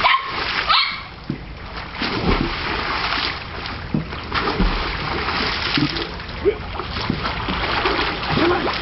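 Swimming-pool water hurled up by a hand sweep in one big splash right at the start, followed by lighter splashing and sloshing as the swimmer moves through the water.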